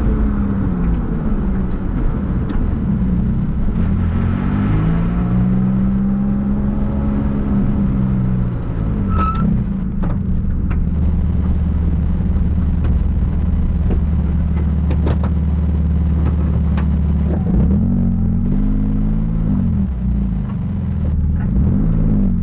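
Porsche 997 GT2's twin-turbo flat-six engine heard from inside the cockpit. The revs fall and rise several times, hold steady at low revs for several seconds in the middle, then rise and fall again near the end.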